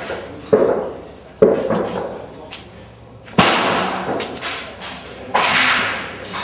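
Black-powder pistol shots: four loud reports at irregular spacing, about one to two seconds apart, each trailing off in a long echoing decay.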